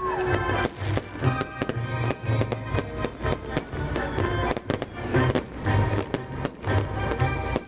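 Fireworks bursting in quick, irregular succession, several bangs a second, with a song playing loudly underneath.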